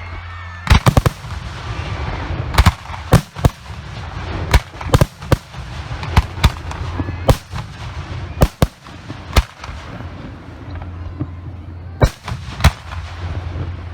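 Professional aerial fireworks firing: a rapid, irregular string of sharp, loud bangs from shells launching and bursting, the opening salutes of the show, with a short lull about ten seconds in. A steady low hum runs underneath.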